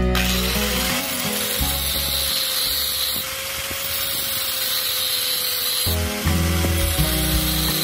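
Angle grinder with a thin cutting disc cutting into a steel flat bar. It spins up to a steady whine shortly after the start, with a hiss of the disc biting the metal.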